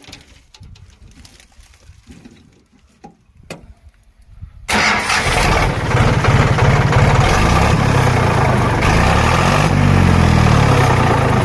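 A few faint clicks, then a diesel tractor engine starts suddenly about a third of the way in and runs loud and steady. Its exhaust has a homemade metal strip fitted under the silencer, which takes the harsh bark out of the note and adds only a slight turbo-like whistle.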